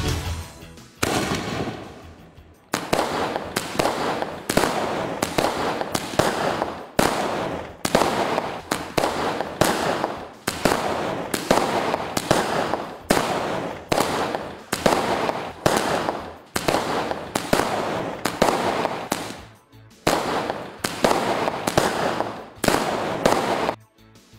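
25-shot aerial fireworks cake firing. A fuse hisses for the first couple of seconds, then shells launch and burst one after another, about one a second, each bang trailing off in crackle, until the barrage stops just before the end.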